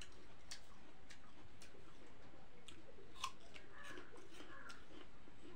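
A person chewing a crisp apple slice close to the microphone: irregular crunchy clicks, one sharper crunch a little past three seconds in.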